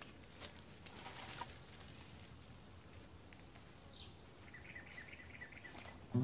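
Quiet woodland ambience with a few short high bird calls and a quick run of chirps about four and a half seconds in, over crackles of footsteps on dry bamboo leaves in the first second or so.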